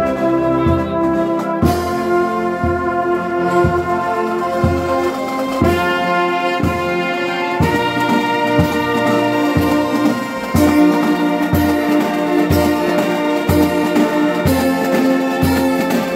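Marching band of clarinets, saxophones and trumpets playing a slow tune in sustained chords that change every few seconds, over a steady low beat about once a second.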